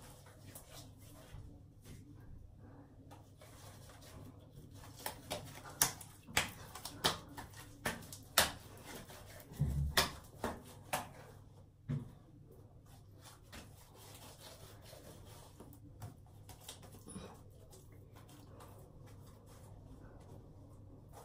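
A run of about a dozen sharp clicks from something being handled, between about five and twelve seconds in, over faint rubbing.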